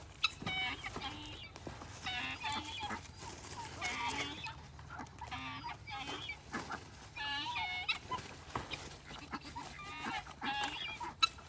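Poultry calling: short, pitched, clucking calls repeated about once a second.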